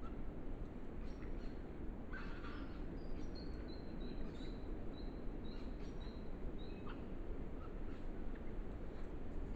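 Wild birds calling: a run of short high notes, about two a second, through the middle, with a few other scattered chirps, over the steady hiss of a trail camera's microphone.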